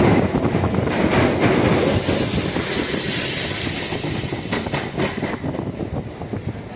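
Passenger train running along the track, heard from on board: a steady rumble of wheels on rail with clickety-clack over rail joints. It grows a little quieter toward the end.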